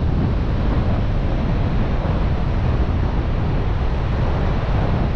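Wind buffeting the microphone, a steady rumbling noise, with ocean surf washing in behind it.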